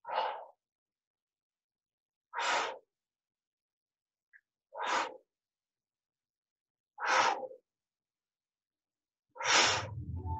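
A woman's sharp, forceful breaths during push-ups: five short breaths, one about every two and a half seconds, one with each repetition.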